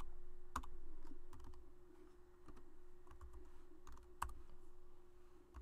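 A few separate keystrokes on a computer keyboard, over a faint steady low hum.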